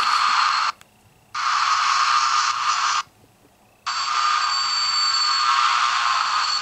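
An alarm going off with a loud, hissy buzz that cuts out abruptly twice, for under a second each time, before starting again.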